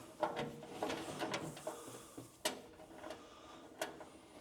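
Light clicks and taps of small metal parts and hand tools being handled while a fuel line fitting is worked on, with two sharper clicks standing out, about two and a half and nearly four seconds in.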